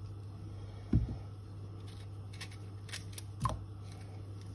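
Small clicks and scraping of a knife trimming wild cardoon stalks by hand, with two soft low thumps, one about a second in and one about three and a half seconds in. A steady low hum runs underneath.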